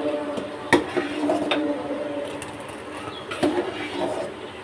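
A steel spoon stirring semai in a metal pot, with three sharp clinks of the spoon against the pot. A low steady hum runs under the first couple of seconds.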